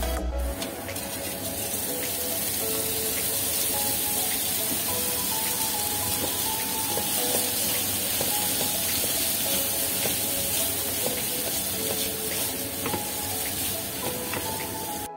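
Oil sizzling steadily in a wok as raw rice and fried minced garlic are stir-fried with a plastic spatula, under background music with a simple melody.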